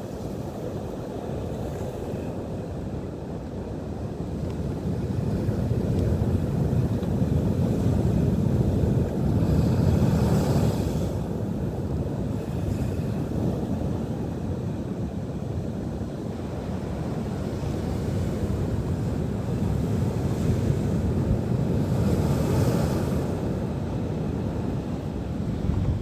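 Atlantic surf breaking over rocks at high tide: a steady rushing rumble that swells louder twice, with a hissing crash near the middle and again near the end.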